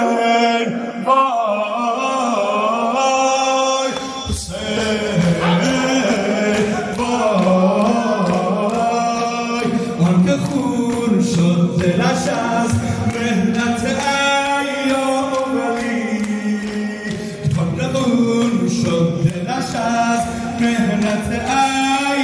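A crowd of men chanting a Shia Muharram mourning refrain (noha) together, over an even rhythm of beats from chest-beating. The sound fills out with a deeper, fuller body about four seconds in.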